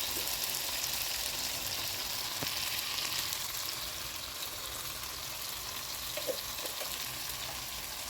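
Onions and tomatoes frying in oil in a pan: a steady sizzling hiss, with a few faint clicks.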